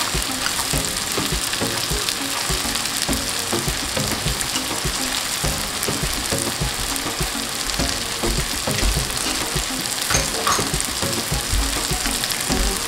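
Potatoes and onion-tomato masala frying in mustard oil, sizzling steadily, while a spoon stirs the freshly added spice through them in quick, irregular scraping strokes against the pan.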